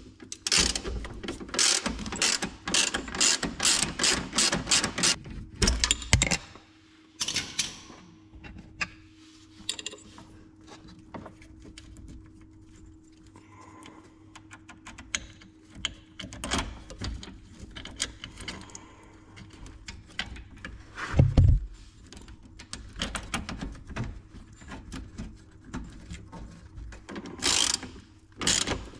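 Hand-tool work on an ATV's wiring and bracket: a quick run of ratcheting clicks for the first six seconds or so, then scattered clicks and knocks, with one loud knock about two-thirds of the way through.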